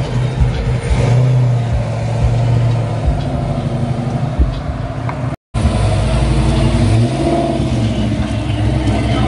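Car engine running, with a steady low note; the sound drops out for an instant about halfway through, then the engine note swells and falls back about seven seconds in.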